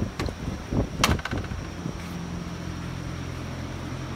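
Clacks and knocks from a metal toolbox being handled, the loudest about a second in, with a quick rattle of ticks after it, over a steady low hum.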